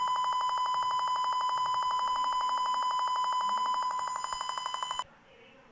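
Simulated piezo buzzer of a Tinkercad Arduino burglar alarm sounding a steady, buzzy high-pitched tone, the alarm set off by the PIR motion sensor. It wavers a little quieter about four seconds in and cuts off suddenly about five seconds in as the simulation is stopped.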